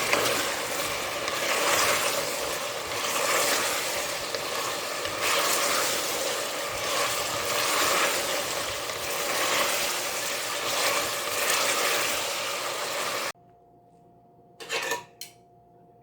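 Chicken karahi frying in a hot karahi pan, a loud steady sizzle with crackle. It cuts off abruptly about thirteen seconds in, leaving a faint hum and one brief clatter.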